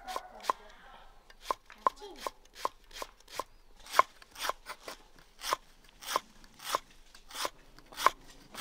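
Knife slicing banana blossom in a steady rhythm of about two sharp strokes a second.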